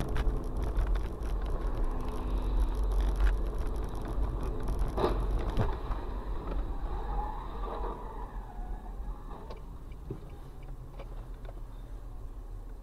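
Dashcam recording of a car driving: steady low road and engine rumble heard from inside the cabin. A single sharp bang comes about five seconds in, as a vehicle crashes on the road ahead.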